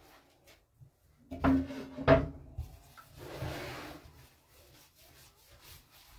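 Hands working a ball of bread dough in a ceramic bowl. The bowl knocks twice, loudly and with a short ring, about a second and a half and two seconds in, and about three seconds in comes a second of rubbing and squishing as the dough is pressed.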